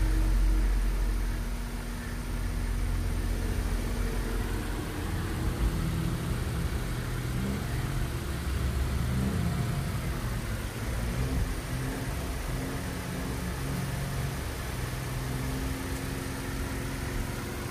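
A motor vehicle's engine running, its pitch shifting up and down as it drives, over a steady hiss.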